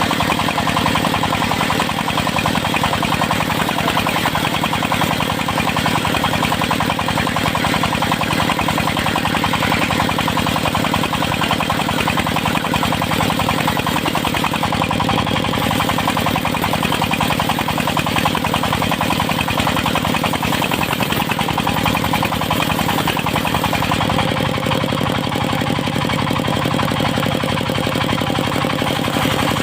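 Diesel engine of a circular sawmill running steadily, with a slight change in its tone about three-quarters of the way through.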